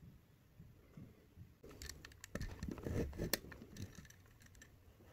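Utility knife cutting and trimming a small black plastic part on a board: a run of sharp clicks and scraping cuts over about three seconds, loudest a little past the middle.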